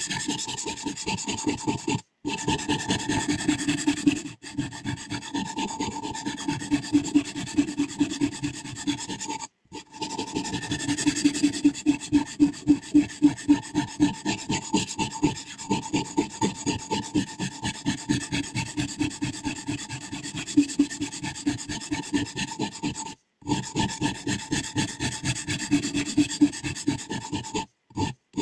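Sharpening stone stroked quickly back and forth along a scissor blade's edge: a rhythmic rasping of about three strokes a second. It cuts off abruptly a few times.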